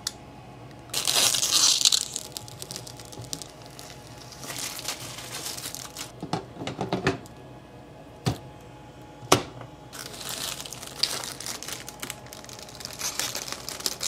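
Protective plastic film being peeled off a tempered-glass PC case side panel: crinkling and tearing in several bursts, the loudest about a second in, with two sharp clicks about a second apart near the middle.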